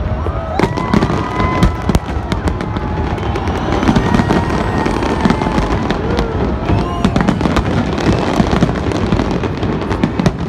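Fireworks display: a dense, continuous barrage of aerial shell bangs and crackles over a steady low rumble.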